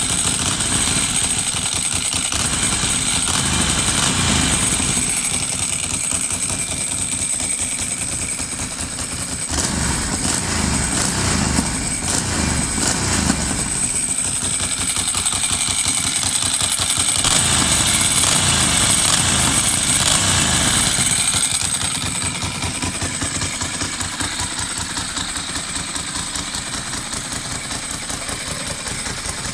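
A Ducati's air-cooled V-twin engine, with dry clutch, running: it idles with a pulsing beat and swells up in revs three times before settling back to a steady idle near the end.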